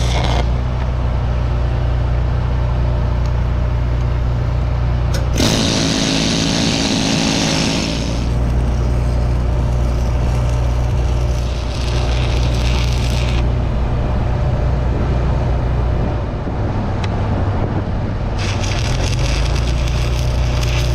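Stick-welding arc crackling and sizzling in stretches: at the very start, from about eight to thirteen seconds, and again from about eighteen seconds on. Under it runs a steady low engine drone, and a louder burst of noise comes about six to eight seconds in.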